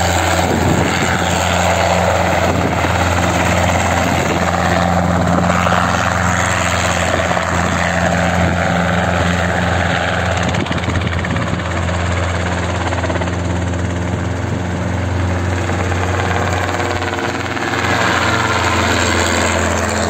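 Light two-bladed helicopter taking off and flying away, its engine and rotor running steadily under load with a constant low hum.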